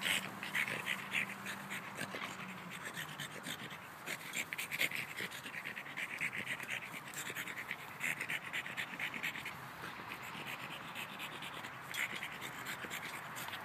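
French bulldog panting in bouts, with fine scratchy clicks as it paws at a small ball in the grass against the goal frame.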